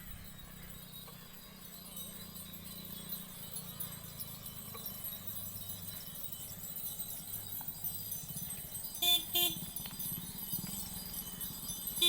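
Two short beeps of a vehicle horn in quick succession about nine seconds in, over a low steady hum.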